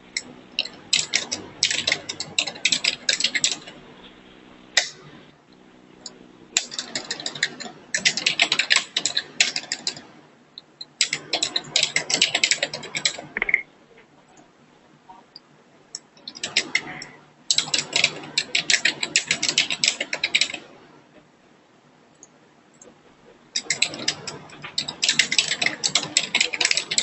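Computer keyboard typing in several bursts of two to four seconds of rapid key clicks, with short pauses between them.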